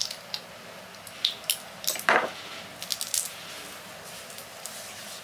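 Glass perfume bottle being sprayed and handled: a string of short hissing sprays and light clicks over the first few seconds.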